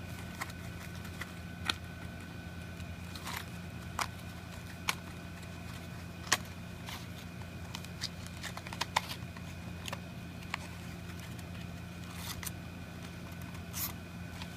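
Scattered light clicks and rustles of a cardboard staple box being handled and a strip of staples being taken out of it, over a steady electrical hum.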